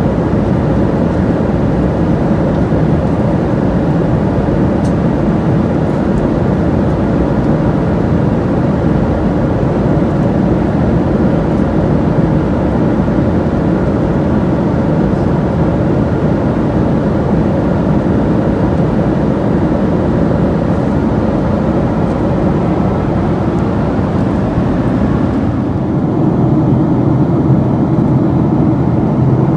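Steady rushing cabin noise inside a Boeing 737-800 airliner in cruise. Its tone shifts slightly lower near the end.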